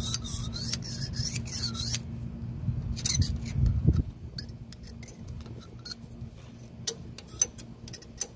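A flat metal blade scraped back and forth along the steel king pin of a Club Car Villager's front suspension, about two strokes a second for the first two seconds, with a few more strokes a second later. Then scattered light metallic clicks and taps, over a low steady hum.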